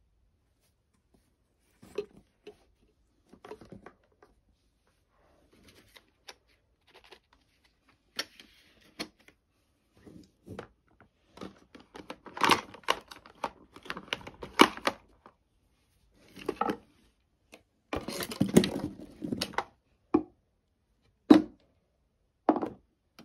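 Small glass nail polish bottles clinking and knocking against each other and against plastic drawer bins as they are placed and shuffled, in irregular clusters of taps. A denser rattle of rummaging comes about eighteen seconds in.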